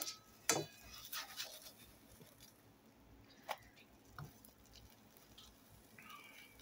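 Plastic slotted spatula scraping and tapping against a nonstick frying pan as it gathers stray melted cheese: a few faint, short scrapes and knocks, the loudest about half a second in.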